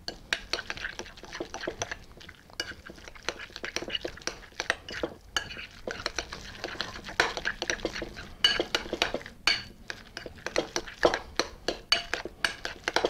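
A metal spoon stirs raw steak tartare mixture in a glass bowl, giving a quick, irregular run of clinks and scrapes against the glass.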